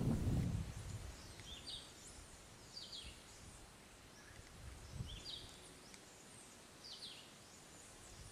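A bird repeating a short high call that drops in pitch, four times at roughly two-second intervals, over faint outdoor background noise. A low rumble sounds in the first second.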